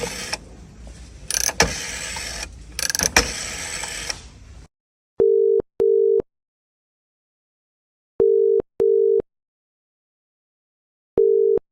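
Clattering and knocks over a hiss for the first few seconds, then a British telephone ringing tone, the 'burr-burr' a caller hears while the other end rings: pairs of short low beeps repeating about every three seconds, two full rings and the start of a third.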